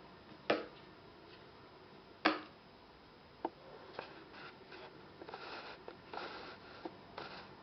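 Handling sounds: a few sharp clicks and knocks, the loudest about two seconds in, then short bursts of rustling from about five seconds in.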